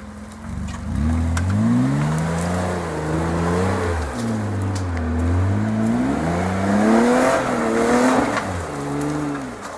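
Off-road 4x4's engine revving up and dropping back several times under load as it works over rock. A louder rush of noise, likely tyres and stones, comes with the highest revs about three-quarters of the way through.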